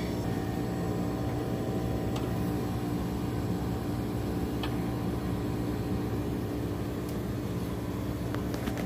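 Split-type air conditioner outdoor unit, compressor and condenser fan running with a steady hum while refrigerant is charged into a system that was low on refrigerant from a small leak.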